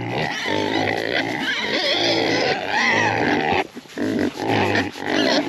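A group of Idaho Pasture Pigs and piglets vocalizing loudly and without pause, broken only briefly a little before four seconds in. These are hungry pigs crowding the fence at feeding time.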